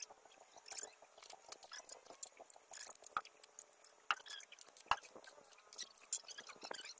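Stick welding: the electrode's arc crackling and spitting steadily, with a few sharper pops along the way.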